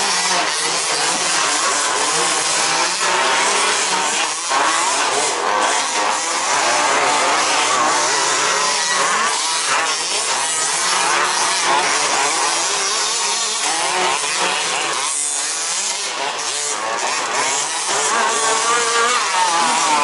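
Several 1/5-scale petrol RC buggies' small two-stroke engines racing at once, their high buzzing pitches rising and falling and overlapping as they rev up and back off.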